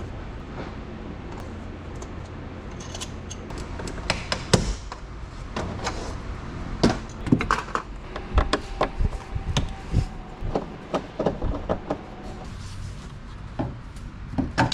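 Rear door trim panel of a Mercedes CLS being pried off: a steady low rumble, then from about four seconds in a long run of sharp plastic clicks and knocks as the panel and its clips are worked loose.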